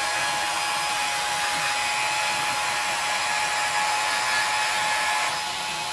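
Cordless angle grinder running against a metal barbecue grill grate: a steady high whine over a harsh scraping hiss as the grate is scrubbed clean. The sound eases a little about five seconds in.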